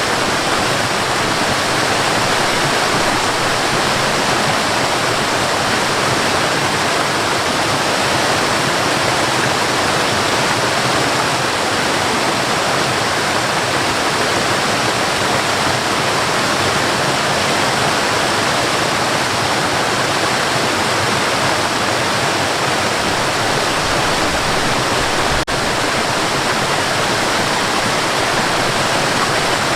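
Waterfall pouring steadily, a dense, even rush of water. It cuts out for an instant about three-quarters of the way through.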